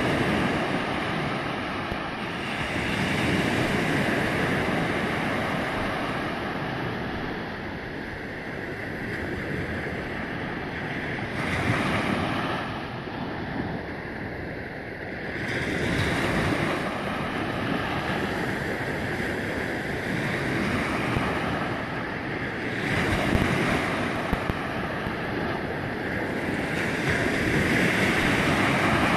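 Small ocean waves breaking and washing through shallow surf. The rush swells and eases every few seconds.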